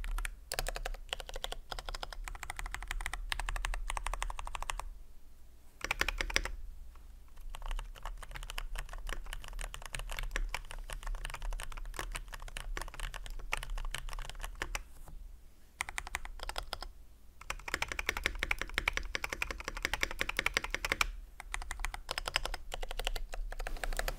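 Continuous typing on a Keychron K10 Pro mechanical keyboard with its stock Keychron K Pro Brown switches, a run of quick key clicks played as a keycap sound test. The typing stops briefly about five seconds in and again around the middle.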